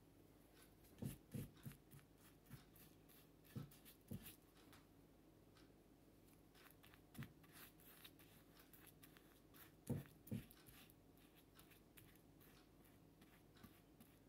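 Faint brushing of Mod Podge glue onto a painted terracotta pot: light scratchy brush strokes with a few soft taps and clicks, the clearest about a second in and again around ten seconds in.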